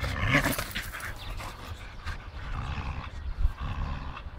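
Two dogs tugging at a rubber tyre, growling in rough bursts in the first half-second, with a single thump about three and a half seconds in.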